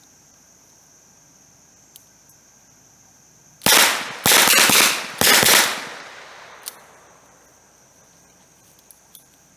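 A .22 LR Heritage Rough Rider single-action revolver fired by fanning the hammer. Several shots go off in quick succession over about two seconds, starting about three and a half seconds in, each with a short echoing tail.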